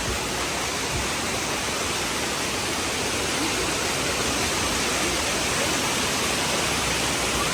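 Steady rush of water pouring down a large man-made waterfall cascade.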